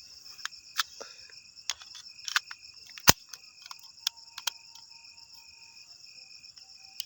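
Crickets chirring steadily in a field, with an on-and-off higher trill over it. About a dozen sharp clicks break through, and one louder sharp crack comes about three seconds in.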